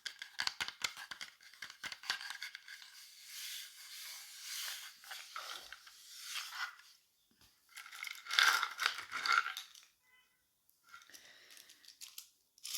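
ASMR brushes brushed in soft, hissy strokes that swell and fade several times, loudest a little past the middle, with a short pause near the end.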